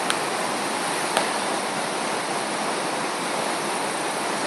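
Steady rushing of the flood-swollen Passaic River, fast brown floodwater pouring past trees along the bank.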